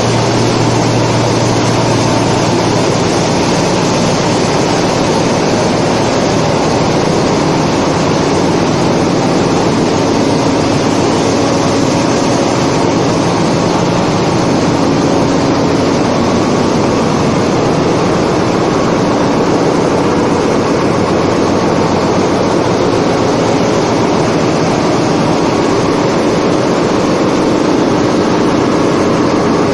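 Ship's engine room: loud, steady machinery noise from running engines and auxiliaries, with a few faint steady hums under it.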